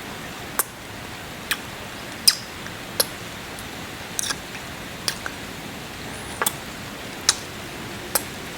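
Close-miked kisses: about ten short, wet lip smacks at uneven intervals, over a steady bed of rain.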